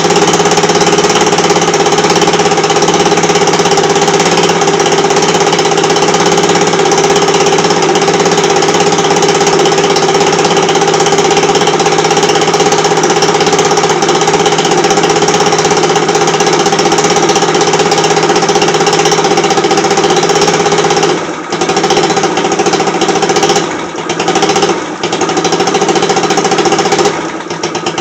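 Scooter engine running loudly and steadily, then faltering in a few brief dips and dying near the end: the engine will not stay running and stalls out.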